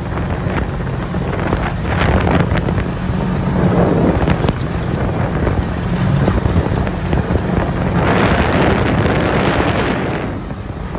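ATV engine running during a ride, with wind buffeting the microphone; the rush of wind noise grows louder about eight seconds in.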